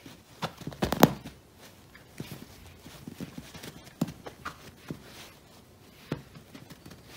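A series of soft thumps and taps as a cat paws and pounces at a feather wand toy on a stuffed cushion, with the sharpest cluster of knocks about a second in and single taps scattered after.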